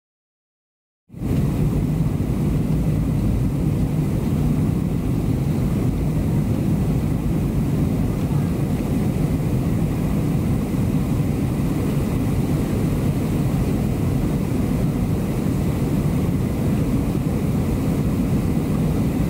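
Steady engine and airflow noise heard inside the cabin of a Boeing 737-700 airliner on approach with its flaps extended, starting suddenly about a second in.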